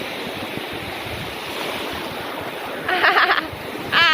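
Sea surf washing in as a steady rush of noise. About three seconds in a high-pitched voice calls out briefly, and another starts just at the end.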